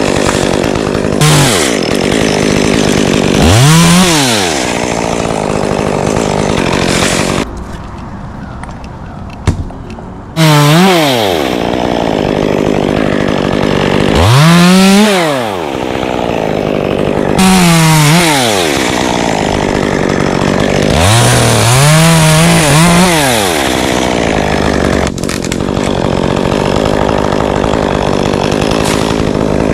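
Chainsaw engine revving up and down over and over, its pitch rising and falling with each rev while cutting, with a quieter lull about a third of the way in.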